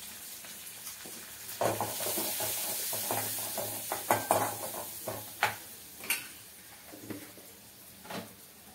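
A sambar tempering of spices, onion and curry leaves frying in ghee in a small metal pan. It sizzles as a spoon stirs it, with several sharp clinks of the spoon on the pan. The sizzle starts up about a second and a half in and dies down after a few seconds.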